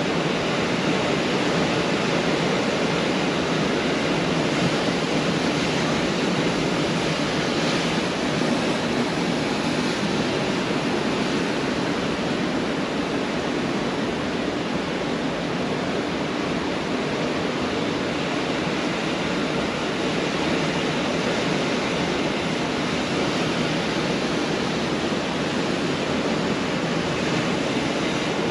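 Ocean surf breaking on a beach: a steady, continuous wash of waves with no single crash standing out.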